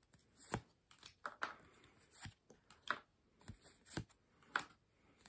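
Playing cards being slid one at a time off the front of a hand-held fan and tucked behind it, a soft, brief swish or flick of card stock roughly every half second.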